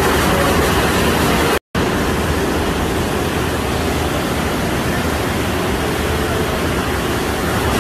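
Floodwater rushing in a torrent into a subway station, a loud steady rush of water. About one and a half seconds in it cuts out abruptly for a moment, then a steady rushing noise goes on, a little duller.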